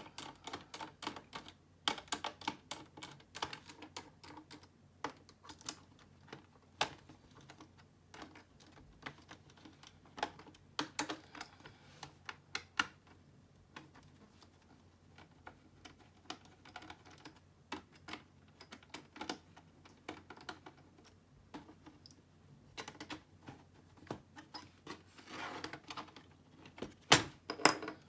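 Irregular clicks and snaps of a plastic laptop case being handled and pried apart, with a few louder snaps near the end.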